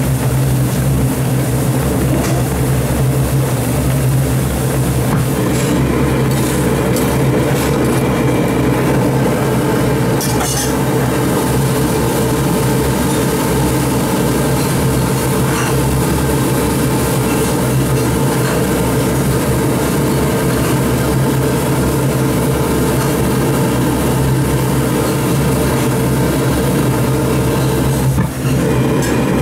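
Spicy rockfish stew boiling hard in a wok over a gas burner: a steady, loud rushing noise with bubbling, and a few light clicks between about six and ten seconds in.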